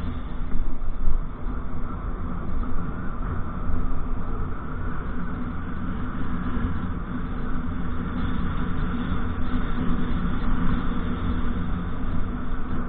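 Motorcycle on the move: steady engine note with road and wind rumble on the camera microphone.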